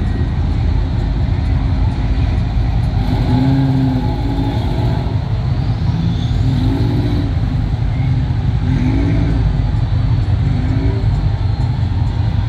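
Muscle car engines rumbling steadily and loudly, with short rises and falls in pitch now and then.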